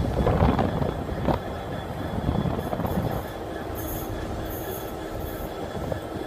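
Class 43 HST diesel train pulling away, its engine rumble and wheel-on-rail noise loudest in the first second and then fading as it draws off, with a few brief high-pitched squeals around the middle.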